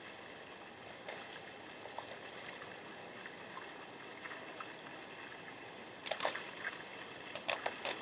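Black bear scraping at ice in a bird-bath basin: scattered scrapes and clicks, clustered about six seconds in and again near the end, over a steady hiss.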